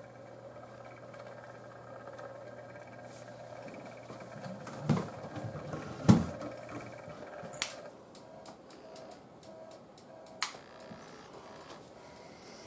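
A few dull thumps, the loudest about six seconds in, and two sharp clicks, over a faint steady hum. Faint short pips come about twice a second in the last few seconds.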